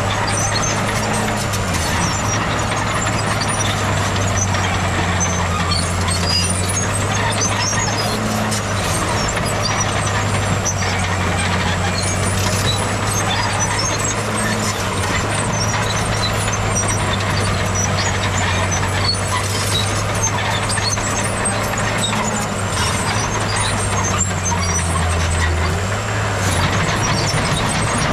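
Heavy diesel earthmoving machinery running steadily under load, its low engine note dipping and rising briefly several times, with scattered metallic clanks and rattles over the top.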